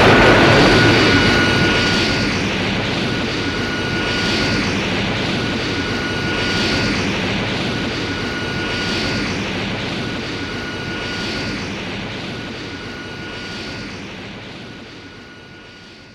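A Super Mechagodzilla sound effect: a loud rushing noise with a steady high whine that starts suddenly, swells about every two seconds, and slowly fades away.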